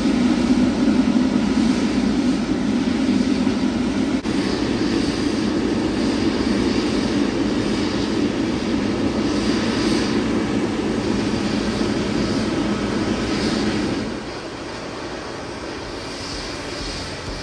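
Boeing 777-300ER's twin GE90 jet engines running at low taxi thrust, a steady rumble that becomes noticeably quieter about 14 seconds in.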